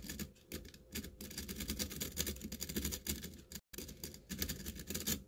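A lock-picking rake worked rapidly in and out of a brass Yale-keyway pin-tumbler cylinder held under tension, the pins giving a fast, dense run of small metallic clicks, with a brief break a little past halfway. The lock is being raked to try for a false set.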